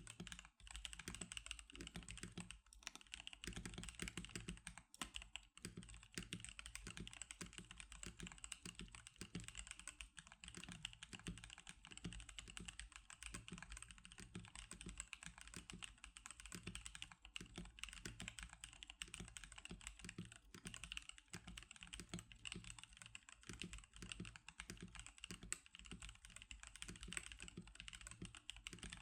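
Continuous fast typing on an NK87 custom mechanical keyboard with Magic Girl keycaps: a quiet, dense stream of key clacks with no pauses.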